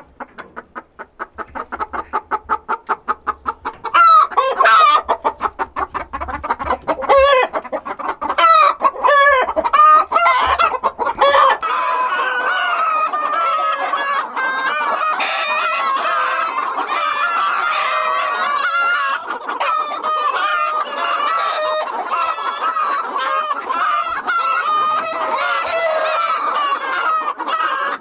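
A flock of chickens clucking, with a rooster crowing. It begins as quick, regular clucks growing louder, breaks into loud irregular calls, and from about halfway settles into a dense, steady chorus of many birds.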